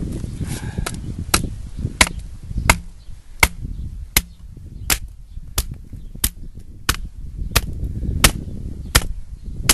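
Fiskars X15 axe blade striking wood in a steady rhythm of sharp chops, about one every three-quarters of a second, more than a dozen in all, as it shaves feather-stick curls down a stick held upright on a log.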